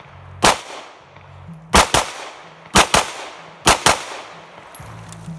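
Pistol shots fired fast at a target. One shot comes about half a second in, then three quick pairs follow, about a second apart, with the two shots in each pair about a fifth of a second apart.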